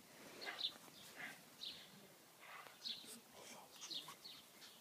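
Faint songbird chirping: a string of short, high chirps, about two a second.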